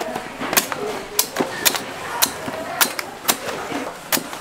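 A blade chopping into coconuts: sharp, crisp knocks coming about twice a second at a slightly uneven pace, some seven strikes in all.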